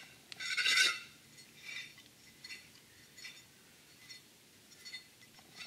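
Jet ski pump impeller being screwed onto its shaft by hand inside the pump's wear ring, with metal-on-metal scraping and light clinking as it turns: a louder scrape in the first second, then faint short scrapes every second or so.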